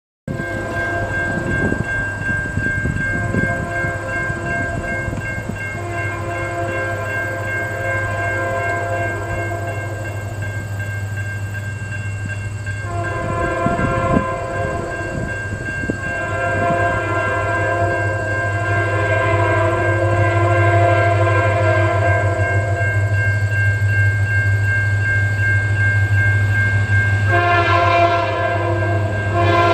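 Distant diesel freight locomotive's air horn sounding long chords for a grade crossing, with short breaks between blasts, growing louder as the train approaches. A steady high ringing tone, typical of the crossing's warning bell, runs underneath.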